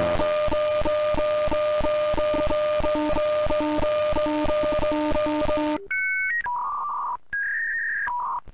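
Electronic sound effect: a loud static-like hiss with steady tones and about four pulses a second, which cuts off abruptly; then a short run of steady beeps stepping between pitches.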